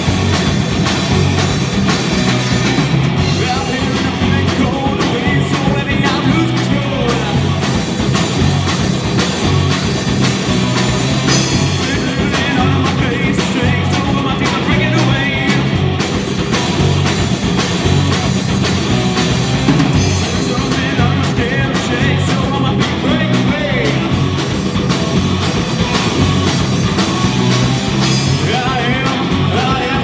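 A rock band playing live, loud and steady: electric guitars and a drum kit, with a sung lead vocal.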